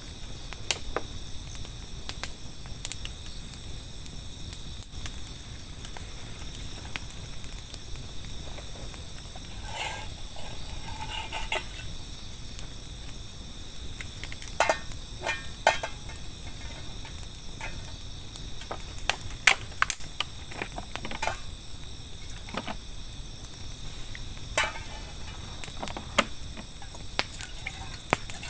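Crickets and other insects chirring steadily, with a wood campfire crackling in short sharp pops. A few clusters of knocks and clinks come as a cooking pan is handled.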